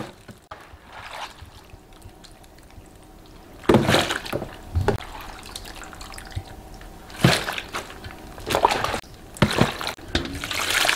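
Wet sloshing and splashing of brine-soaked cabbage being lifted and scooped from a steel bowl into a plastic container, in a few short bursts. Near the end the kimchi brine is poured from the tilted bowl into the container, a steady pouring splash.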